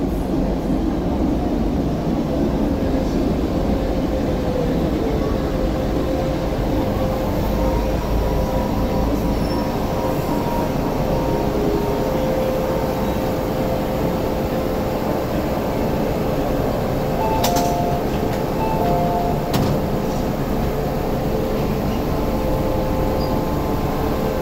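MTR Disneyland Resort Line M-Train electric multiple unit pulling into the platform and slowing to a stop, with a steady rumble and a whine from the train. About two-thirds of the way through come short repeated beeps and a couple of clicks as the doors open.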